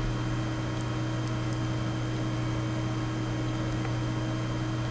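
Steady low electrical hum with a faint even hiss, with no other sound.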